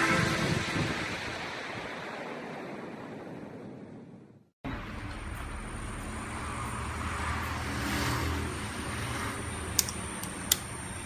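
Background music fading away, a brief cut to silence, then a blade-sharpening machine running steadily, its motor humming under a thin, constant high whine. Two sharp clicks come near the end.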